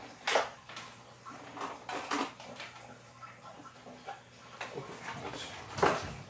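Cardboard box and packing materials being handled: irregular rustling and scraping strokes, the loudest about a third of a second in and again near the end.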